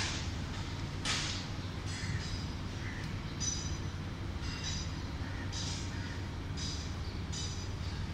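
Steady low rumble of street traffic, with short high-pitched squeaks or chirps about once a second.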